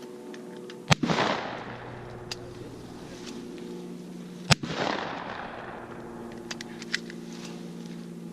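Two 12-gauge Benelli semi-automatic shotgun shots about three and a half seconds apart, each followed by a long rolling echo.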